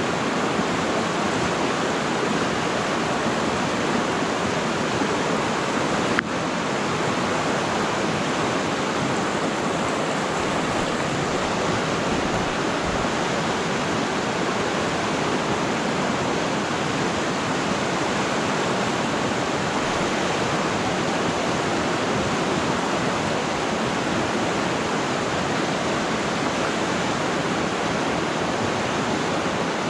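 River water rushing steadily, an even full hiss with no let-up. A single sharp click about six seconds in.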